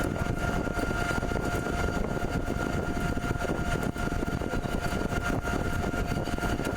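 CNC pipe threading machine running steadily: a constant mechanical noise with a steady high whine held on one pitch.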